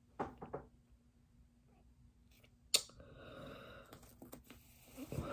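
Handling of a gift package: a few faint rustles, a sharp click a little under three seconds in, then about a second of soft rustling.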